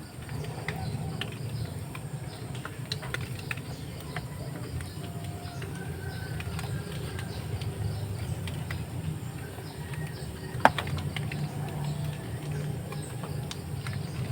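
Outdoor morning ambience: scattered short bird chirps over a steady low rumble, with one sharp click about ten seconds in.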